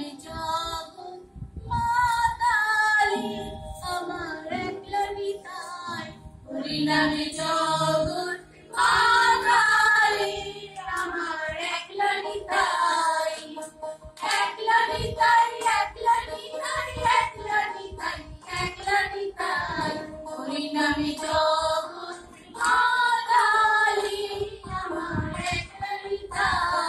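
Several women singing a Bengali song together, keeping time with hand claps.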